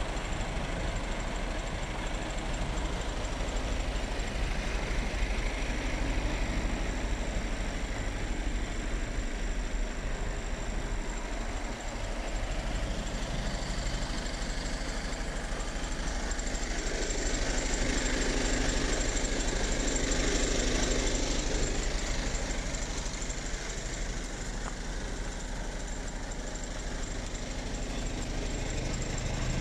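Mercedes-Benz Actros 2548's 480 hp straight-six diesel engine idling steadily, with a low rumble and fast, even pulsing, swelling slightly a little over halfway through.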